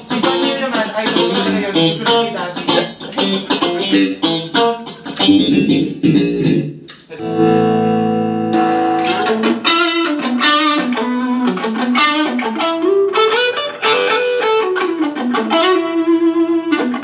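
Electric guitar played through an amp: quick picked notes for the first seven seconds, a chord left ringing around seven seconds, then a slower single-note lead line that climbs and comes back down.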